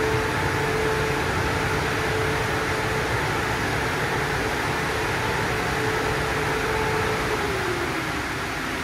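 Dryer blowers of a Christ GENIUS C160 rollover car wash running: a loud, steady rush of air with a held hum that drops in pitch about seven seconds in.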